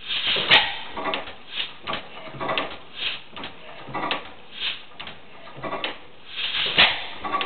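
Otto 15 horsepower single-cylinder stationary gas engine running, a regular beat of puffs and clanks about twice a second. Two sharper, louder bangs come about half a second in and near the end.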